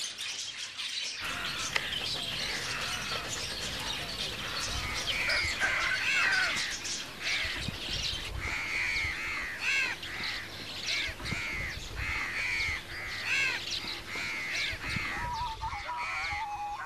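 A chorus of birds calling, beginning about a second in; from about five seconds in, loud arched calls repeat roughly twice a second. Near the end a steadier warbling call joins.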